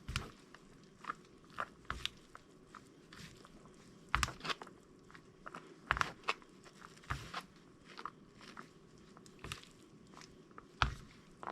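Close-miked chewing of instant fried noodles: wet mouth clicks and smacks at irregular intervals, a few of them louder.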